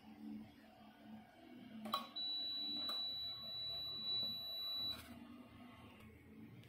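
Kyoritsu 6010A multifunction tester's buzzer sounding one steady, high-pitched beep for almost three seconds while its test button is held, with a click as it starts and another as it stops.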